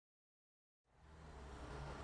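Dead silence for almost the first second, then a faint low hum and hiss fade in and slowly grow louder: the opening of the episode's soundtrack.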